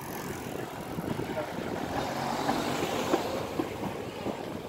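A car passing close by on a narrow street, its tyre and engine noise swelling about halfway through and then fading.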